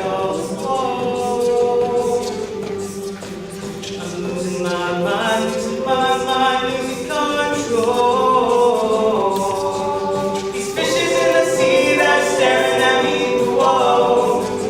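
A cappella group singing: several voices in close harmony with no instruments, growing fuller and louder about eleven seconds in.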